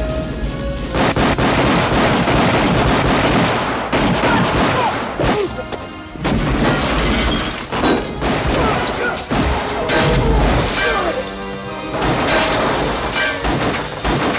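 Action-film soundtrack: a dramatic music score with repeated sudden bangs and booms of gunfire and crashing impacts layered over it.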